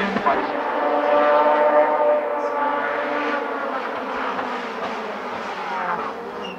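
A hillclimb race car's engine revving high and fading as the car climbs away up the course.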